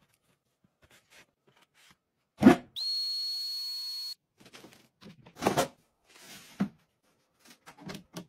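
A small handheld electric vacuum pump on a vacuum storage bag runs for about a second and a half with a steady high-pitched whine that rises briefly as it starts. A loud thump comes just before it, and scattered rustles and knocks of plastic being handled come before and after.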